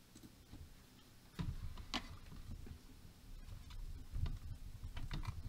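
Light clicks and knocks of hands handling equipment on a workbench. They start about a second and a half in, the sharpest about two seconds in, with dull bumps near the end.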